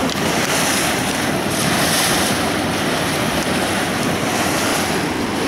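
Steady rush of river water past a moving boat's side, mixed with wind buffeting the microphone.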